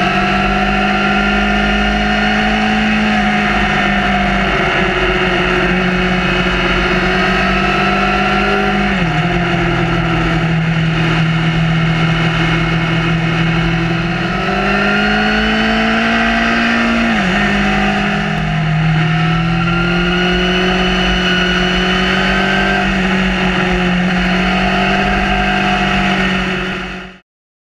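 Honda CB1000R's inline-four engine running under way on the open road, its note mostly steady, then climbing in pitch as it accelerates and dropping sharply at a gear change about two-thirds through, over a low wind rumble. The sound cuts off suddenly just before the end.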